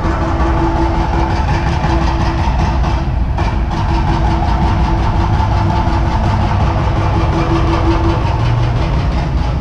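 A vehicle engine running nearby: a steady low rumble with a steady hum over it, the hum stopping about eight seconds in.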